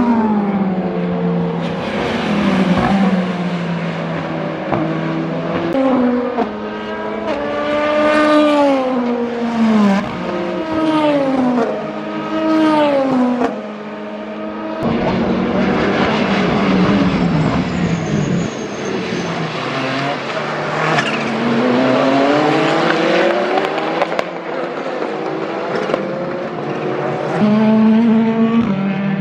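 Racing engines, the Peugeot 9X8's 2.6-litre twin-turbo V6 among them, passing at speed in several passes. In the middle the pitch falls in steps as a car brakes and downshifts, and later it climbs through upshifts as a car accelerates away.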